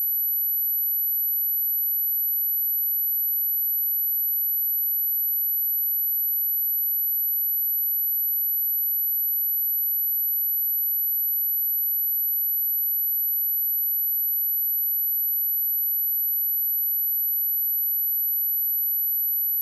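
A steady 11862 Hz sine test tone, one high-pitched pure tone held at an unchanging level.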